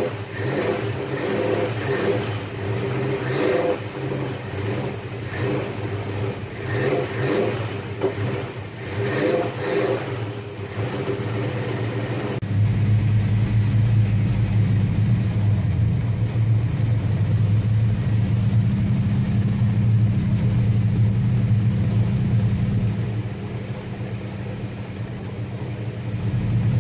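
Car engine running unevenly, its revs rising and falling. About twelve seconds in it changes abruptly to a steady, deeper engine drone.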